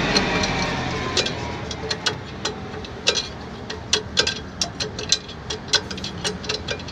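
Mitsubishi Fuso truck's rear drum-brake adjuster being turned with a tool, clicking notch by notch as it is backed off after being tightened until the brake locked. The sharp, irregular clicks come about two or three a second from about a second in, over a steady low hum.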